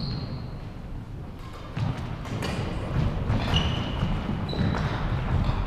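Irregular thumps and knocks with a few short, high squeaks, echoing in a large hall over a low background murmur.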